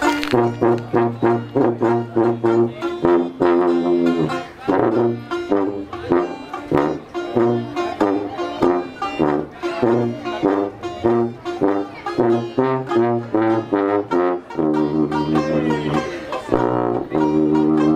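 Small traditional jazz band playing live: a sousaphone carries the bass line under a saxophone melody, with banjo chords keeping a steady beat.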